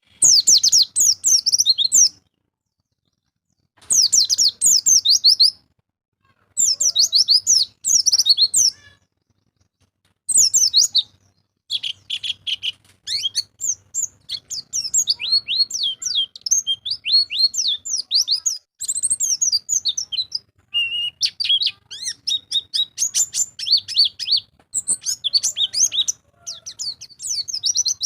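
White-eye (pleci) song: rapid high twittering phrases of quick falling notes. They come in bursts a couple of seconds long, broken by short silences, for the first ten seconds or so, then run into near-continuous chattering.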